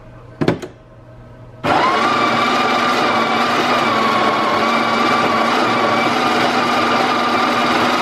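A couple of short knocks about half a second in, then the espresso machine's built-in coffee grinder starts with a brief rising whine and runs steadily, grinding coffee into the portafilter basket.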